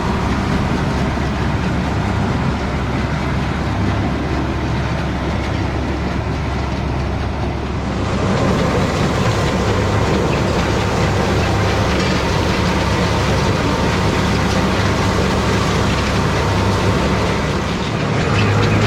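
Tractor engine running steadily while pulling a baler through corn stalks, with machinery clatter over the engine; about 8 seconds in the sound grows louder and fuller.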